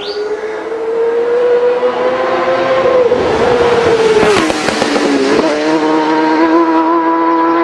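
Racing motorcycle engine at high revs, rising in pitch as it approaches, then passing close by at speed about four and a half seconds in with a sharp drop in pitch.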